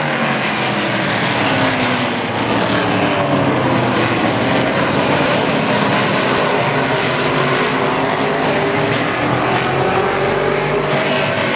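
A pack of stock cars racing around an oval short track, several engines running at once with their pitch rising and falling as cars accelerate and pass by.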